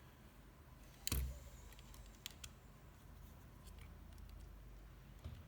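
Faint clicks and taps of small plastic and metal parts being handled as a computer mouse is taken apart, with one louder knock about a second in.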